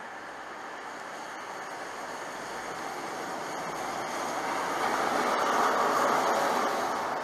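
High Speed Train passing close along the platform: its Class 43 power car and then the Mark 3 coaches go by with a rush of wheel and running-gear noise. The noise builds to its loudest about five to six seconds in, as the coaches pass, then begins to fade.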